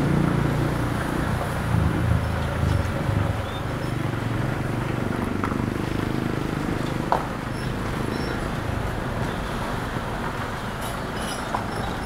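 A car driving along a road, heard from inside the cabin: steady engine and tyre noise. A low engine drone eases off about three and a half seconds in. There is one sharp click about seven seconds in.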